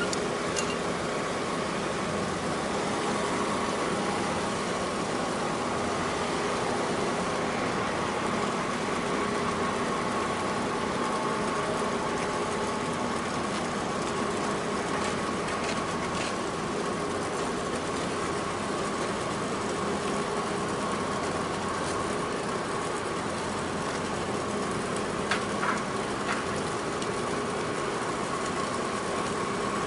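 Steady drone of ship engines, a constant low hum with a steady higher whine over it, with a few faint sharp clicks near the end.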